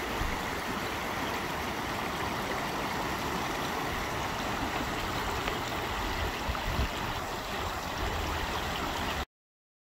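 Shallow river rushing over rocks in a riffle: a steady, even rush of water that cuts off abruptly near the end.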